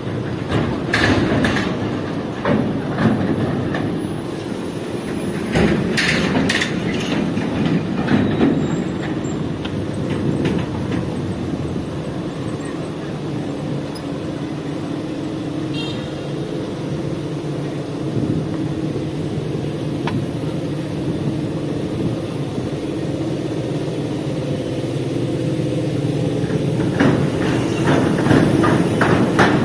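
City street traffic: a steady low rumble of passing vehicles. Scattered clicks and clatter come about a second in, around six seconds in, and again near the end.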